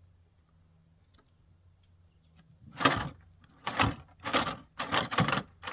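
Repeated scraping strokes of a knife working a fish on a cleaning table, starting about three seconds in and coming about twice a second.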